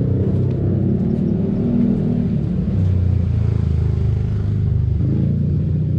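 A motor vehicle's engine running close by, its pitch shifting down about three seconds in and back up near the end.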